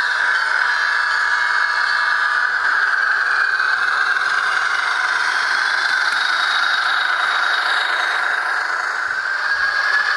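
Soundtraxx sound decoder in a Bachmann HO scale ALCO S4 model locomotive playing the ALCO 539T diesel engine running sound through its small speaker. It runs steadily, with a faint whine that rises slowly in pitch.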